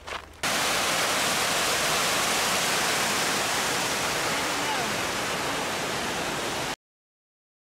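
After a few footsteps on a dirt trail, the steady, even rush of Mill Creek's running water below the sandstone ledges, which cuts off suddenly near the end.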